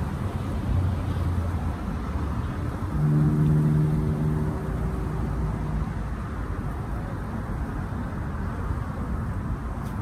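Steady rumble of road traffic. About three seconds in, a vehicle's engine hums at one low, steady pitch for nearly three seconds, the loudest sound here.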